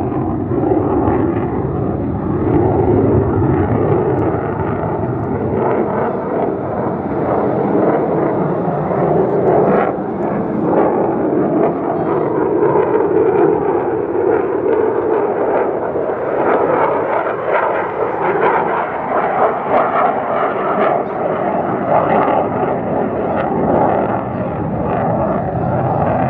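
Loud, steady jet noise from an F-35A Lightning II in flight, its single Pratt & Whitney F135 afterburning turbofan.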